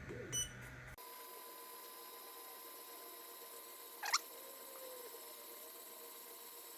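Creality laser engraver running a test burn: a faint, steady hum and whine, with one brief sharp chirp about four seconds in.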